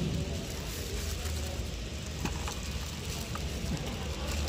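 A few faint light clicks and knocks from handling the plastic-wrapped handlebar, throttle grip and cable of a brush cutter, over a steady low hum.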